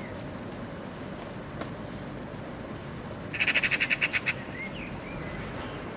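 Eurasian magpie giving its harsh rattling chatter, a fast run of about ten loud clacks lasting about a second, starting about halfway through and followed by a few faint short chirps. This chatter is the magpie's alarm and mobbing call, here aimed at the cat.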